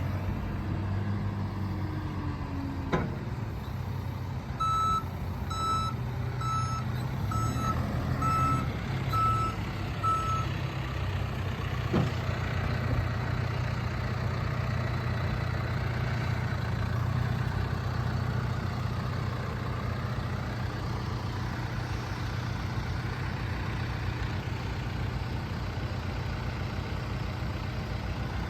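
John Deere 310K backhoe's diesel engine running steadily, with its backup alarm beeping a quick string of high beeps for about five seconds, about a quarter of the way in. Two short knocks are heard, at about three seconds and again near the middle.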